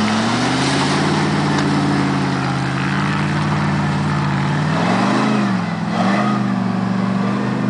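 Ford Bronco's engine revving hard under load as the truck climbs a muddy, rutted hill. The pitch rises at the start, holds high, then dips and climbs again about five seconds in.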